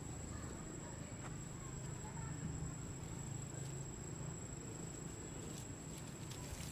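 Outdoor ambience: a steady, high-pitched insect drone over a low rumble that swells in the middle, with a few faint ticks.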